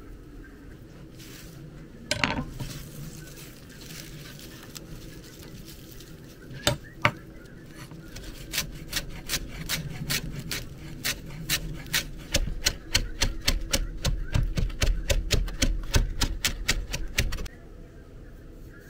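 Hand food preparation in a kitchen. A single knock comes about two seconds in and two sharp knocks near seven seconds. Then a quick, even run of short strokes, several a second, goes on for about nine seconds and stops abruptly.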